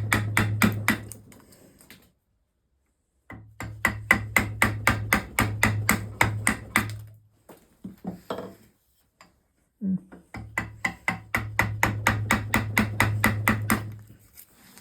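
Mallet tapping a chisel into a spruce stool leg held in a vise, in three runs of quick, even light blows, about five a second, with short pauses between.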